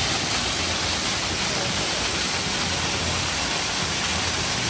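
Small waterfall pouring over rocks and splashing onto the stones below: a steady, even rush of falling water.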